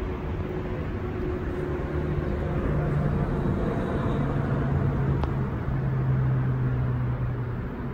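A steady low engine hum that shifts pitch a few times, over a bed of outdoor noise.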